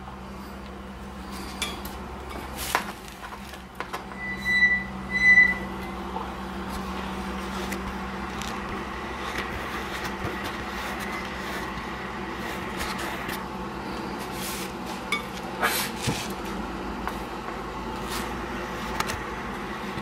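Steady room hum with a few light clicks, and two short high electronic beeps a little under a second apart about five seconds in.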